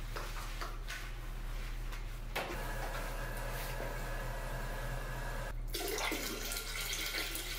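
Baking soda poured from a box into a toilet bowl, then, after a short break, a stream of vinegar splashing into the water in the bowl, done to keep the toilet from clogging.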